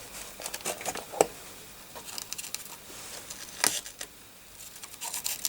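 Scattered small clicks and taps of tools handling a plastic connector on a circuit board as it is worked loose. The loudest clicks come about a second in and near four seconds in.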